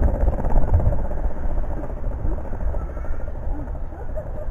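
Skateboard wheels rolling over paving tiles, a steady rumble that slowly fades as the board moves away.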